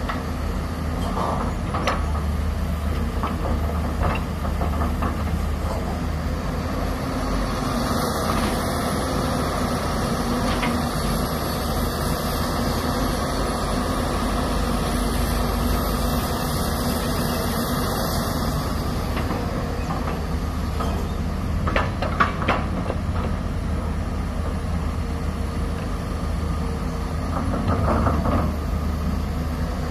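Hyundai crawler excavator's diesel engine and hydraulics running steadily as it swings and dumps buckets of sand into a dump truck's steel bed, with a faint high whine rising and falling. A few sharp knocks come about two-thirds of the way through.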